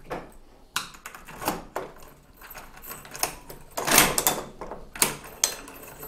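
A key going into a Zemismart Tuya Zigbee smart lock's cylinder and turning it by hand: a run of clicks, rattles and key jangles, the densest about four seconds in, from the key and the door's lock mechanism as the door unlocks and opens. This is the manual key override working with the lock's battery out.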